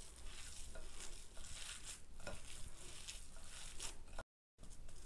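A hand kneading raw kefta (minced meat with herbs and spices) in a bowl: faint, irregular wet squishing and squelching. The sound cuts out briefly about four seconds in.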